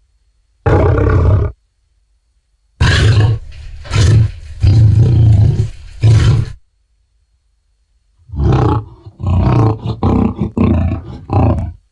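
Sound-effect dinosaur roars for Tyrannotitan, mixed from Showa-era Toho kaiju roars and big cat growls: a short roar about a second in, a longer rising and falling roar from about three seconds, and a string of shorter growling roars near the end, with silence between them.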